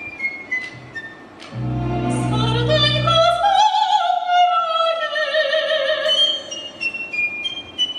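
A woman singing with a Ukrainian folk-instrument orchestra of banduras, button accordions, domras and violins. After soft high instrumental notes stepping downward, a low held chord enters about a second and a half in, and the voice rises into a long held note with vibrato that slowly falls away; soft high notes return near the end.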